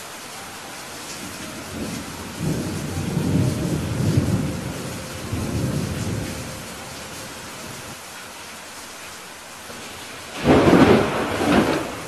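Steady rain with thunder. A low rolling rumble builds about two seconds in and lasts several seconds, then a sharper, louder thunderclap comes near the end.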